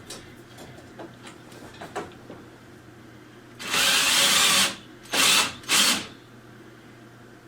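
Cordless drill/driver running in three bursts, one of about a second then two short ones, tightening a fastener into the desk's particleboard frame, after a few light clicks of parts being handled.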